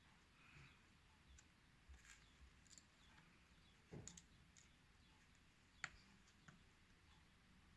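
Near silence broken by faint, scattered small clicks and taps from handling iPhone 7 parts while the display flex cables are pressed onto their connectors, with a soft knock about four seconds in and the sharpest click near six seconds.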